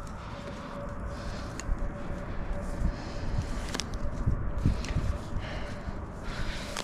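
Climbing rope being handled as the tie-in knot is worked loose and its tail pulled back through the harness tie-in points: soft rustling and rubbing over a low, uneven rumble, with a few light clicks.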